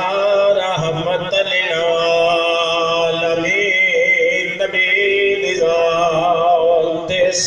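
A man chanting Arabic religious recitation in long, slowly wavering held notes, amplified through a microphone and loudspeaker.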